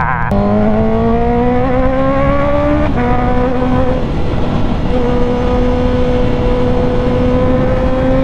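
Honda CB650R's inline-four engine through a full titanium exhaust, pulling under acceleration with its pitch rising. About three seconds in the pitch drops with an upshift, then the engine runs on fairly steadily, slowly climbing again.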